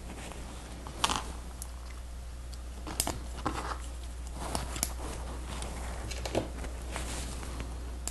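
Plastic Lego Technic pieces clicking and rattling as they are handled and pressed together, a scattering of short sharp clicks, the loudest about a second in and again about three seconds in, over a steady low hum.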